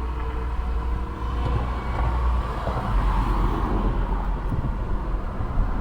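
Hand deburring of the cut end of a 3/16 brake line, metal scraping on metal, over a steady low rumble.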